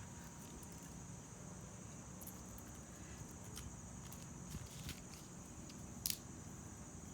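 Insects, crickets, trilling steadily and faintly, with scattered small clicks and ticks of twigs and sticks being handled and laid on the ground, and one sharper click about six seconds in.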